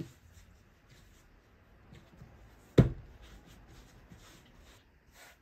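Hands kneading and rounding a ball of bread dough on a floured silicone mat: soft rubbing and brushing strokes, with one sharp thump a little under three seconds in.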